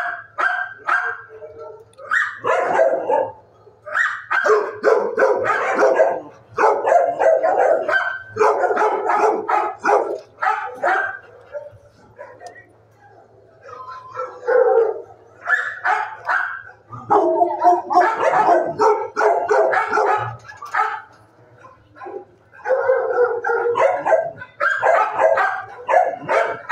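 Shelter dogs barking in the kennels, in long runs of rapid barks broken by short lulls, a couple of times in the middle.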